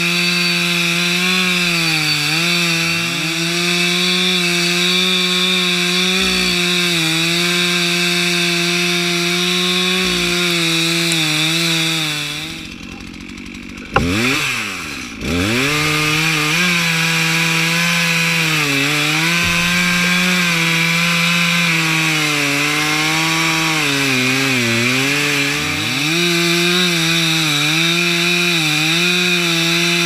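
Stihl two-stroke chainsaw running at high revs while cutting into a tree trunk, its pitch dipping and recovering again and again. About twelve and a half seconds in it drops away for a second or two, then after a sharp knock near fourteen seconds it sweeps back up to full speed.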